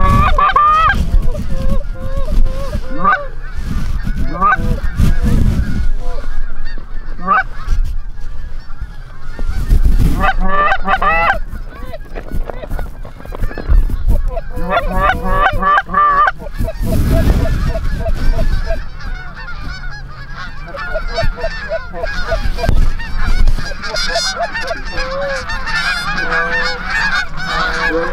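Canada geese honking: repeated loud honks and clucks in clusters, thickening into many overlapping calls in the second half as the flock draws near.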